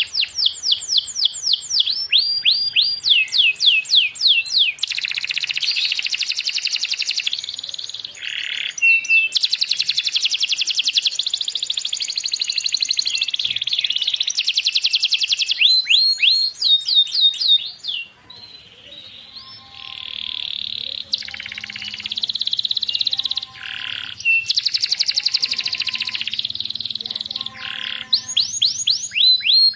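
Canary singing a long, continuous song: runs of fast, rapidly repeated sweeping chirps alternating with long buzzy rolls, and some lower whistled notes in the second half.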